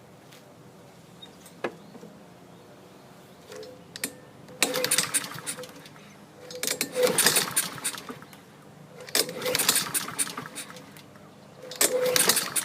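Honda HRR216 lawn mower's single-cylinder engine cranked by its recoil pull-starter four times, each pull a short burst of the engine turning over without catching. It cranks with compression but won't fire, which the owner puts down to old, dark fuel.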